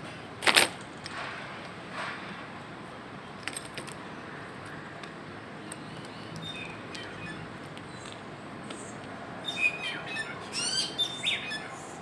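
A bird chirping in a quick run of short high calls about ten to eleven seconds in. There is a sharp tap about half a second in and a couple of lighter taps around three and a half seconds.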